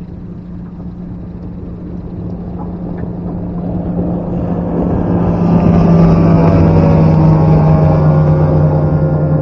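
Bass boat's outboard motor running as the boat approaches, a steady engine hum growing louder over the first six seconds and then staying loud.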